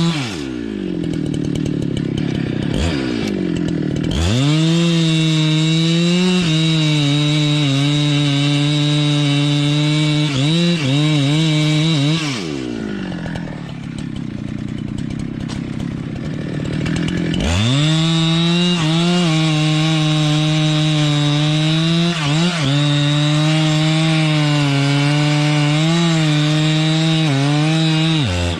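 Two-stroke chainsaw revved up to full throttle and cutting wood for about eight seconds, dropping back to idle, then revving and cutting again for about ten seconds before falling back to idle near the end.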